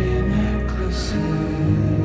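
Music: a slowed-down, reverb-heavy edit of a slow pop ballad, with sustained notes over a deep bass.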